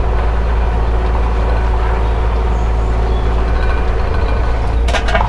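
Takeuchi excavator's diesel engine running steadily under work, heard from inside the cab, with a couple of sharp metallic clanks near the end.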